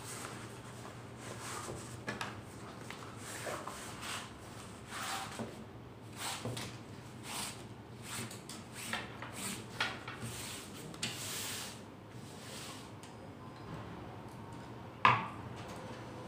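Paper and packaging being handled: scattered rustles, rubs and short slides, with one sharper knock about fifteen seconds in.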